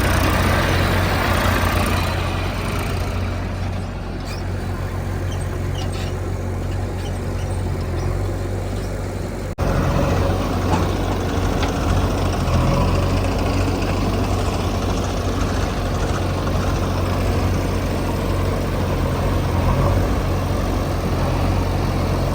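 Heavy diesel engine of a backhoe loader or tractor running steadily under work. The drone breaks off sharply about ten seconds in, then goes on a little louder.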